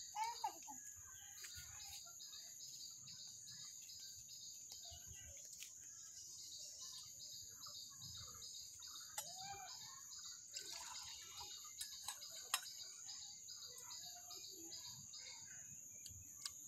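Faint outdoor ambience of insects and birds: a steady high insect drone with a cricket-like chirp pulsing about three times a second, and scattered short bird calls.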